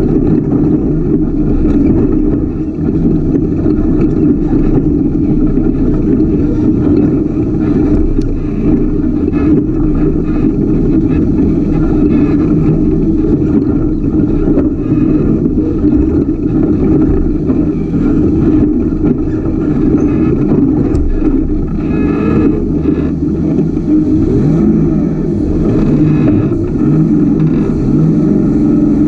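Ultra4 rock-racing buggy's engine running loudly under load on a rocky trail, revving up and down, with rising revs in the last few seconds.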